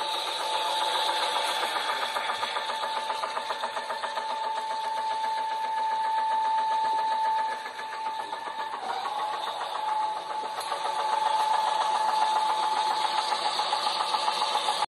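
An engine running with a rapid, even pulsing beat and a steady high whine. The whine dips briefly about nine seconds in.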